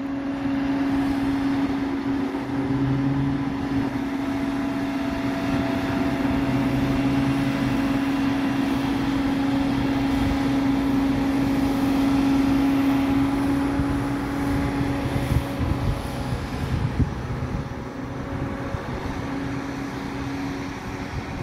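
A steady engine drone holding one low pitch, over a constant rushing background noise.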